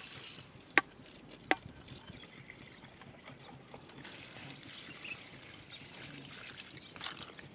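Water poured from a steel tumbler onto dry instant noodles in a steel cooking pot: a steady splashing trickle from about four seconds in. Before it come two sharp metal clanks at the pot, the loudest sounds.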